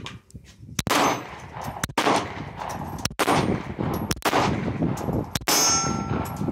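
Pistol fired five times, about a second apart, at steel plate targets, each shot followed by an echo. After the last shot a struck steel plate rings briefly.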